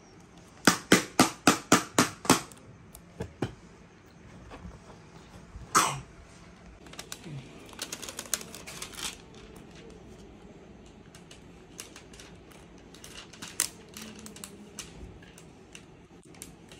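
A quick even run of about eight sharp taps, about four a second, then scattered small clicks and the crinkle of a plastic sticker sheet as stickers are peeled off and pressed onto a plastic toy kitchen set.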